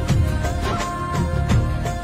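Background music: held melody notes over a steady drum beat, in a South Asian film-song style.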